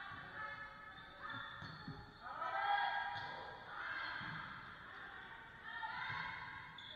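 Girls' voices calling out and shouting in an echoing gymnasium during a volleyball rally, in several drawn-out calls that overlap.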